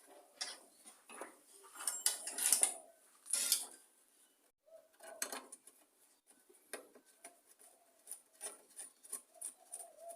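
Metal clinking and rattling of hand tools and bolts, in sharp clicks that are loudest about two to three and a half seconds in, as a replacement recoil starter housing is bolted onto a Briggs & Stratton mower engine. A dove coos faintly.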